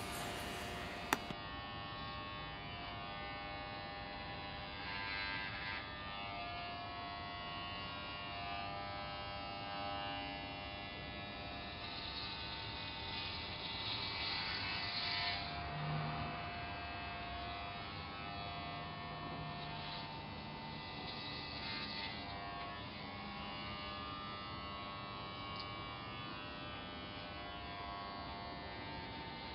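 Corded electric hair clippers buzzing steadily as they shave a head, with swells of hiss as the blades pass through the hair, the longest near the middle. A sharp click about a second in.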